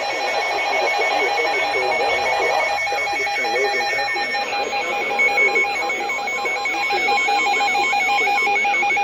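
Emergency Alert System alert tone received over the radio: a steady electronic tone, pulsing evenly, over a noisy, wavering background.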